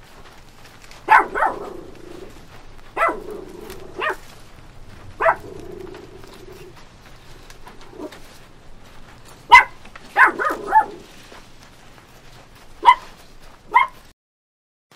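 Puppies yipping and barking in short, sharp, high-pitched yaps, singly and in quick bunches of two or three.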